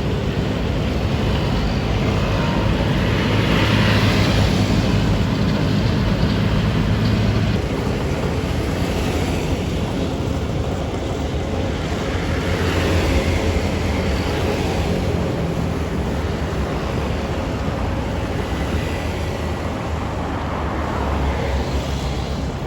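Diesel engines of asphalt-paving machinery running steadily, a low drone under broad mechanical noise that swells a few times.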